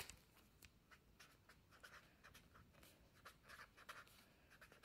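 A pen writing on a lined paper notepad: faint, quick scratching strokes as words are written out, with a brief click at the very start.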